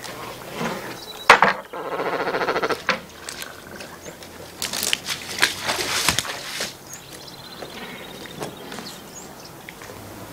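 A cormorant gives a guttural rattling croak lasting about a second and a half, after a sharp knock. Scattered splashes and knocks follow as a person wades beside a bamboo raft.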